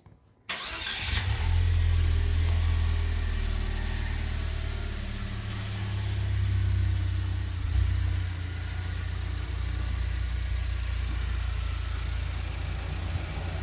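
A motor vehicle's engine starts with a sudden burst about half a second in, then keeps running with a steady low hum.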